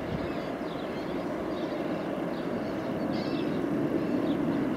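Jet engines of a departing JetBlue airliner rumbling steadily as it climbs out after takeoff, growing slowly louder, with birds chirping throughout.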